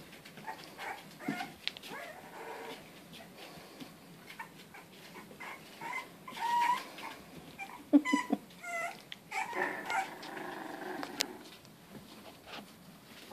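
Bulldog puppy at play, growling and giving short high yips and whines while tugging at a blanket.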